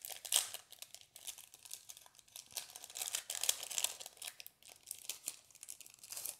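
Foil wrapper of a Pokémon trading card booster pack crinkling and tearing as it is opened by hand, with irregular crackling.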